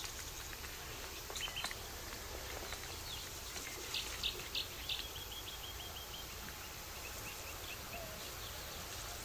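Wild birds calling: a few sharp high chirps about four seconds in, followed by a run of short, evenly spaced notes that trails off, over a steady high hiss of outdoor ambience.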